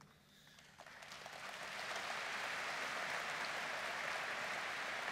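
Large audience applauding in a hall. The clapping starts thin about a second in, swells over the next second and then holds steady.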